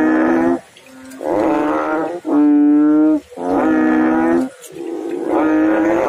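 Frog calling repeatedly in a drain: about five loud, pitched calls, each lasting under a second, with short gaps between them.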